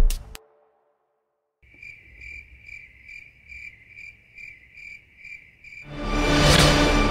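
Crickets chirping at night, a steady train of about two and a half high chirps a second that starts after a moment of silence. Near the end a rising swell of music comes in over it and is louder than the chirping.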